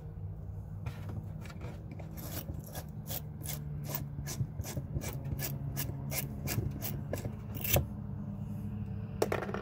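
Pipe deburring tool scraping the freshly cut end of a ½-inch copper pipe in quick repeated strokes, about three a second, stopping about eight seconds in.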